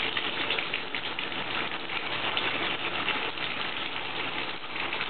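Bathtub faucet running steadily, its stream of water pouring onto a wet cat sitting under the spout and splashing into the tub.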